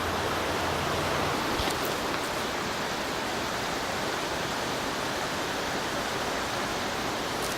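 Wadable creek running over rocks: a steady rush of flowing water.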